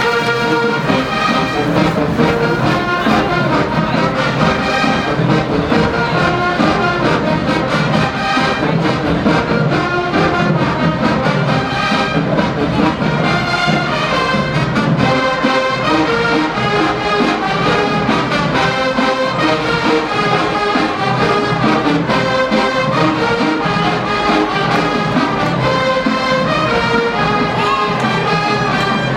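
A college marching band plays a loud, continuous brass-led tune over steady rhythmic drumming.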